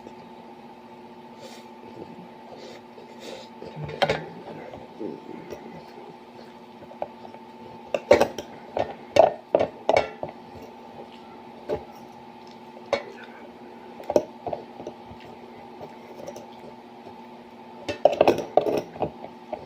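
Cutlery clinking and scraping against a food container in short clusters of sharp knocks, over a steady low hum.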